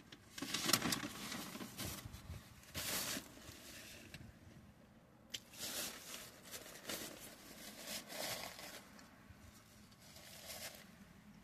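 A person chewing a mouthful of a chicken Big Mac, in irregular bursts of soft chewing and mouth noise.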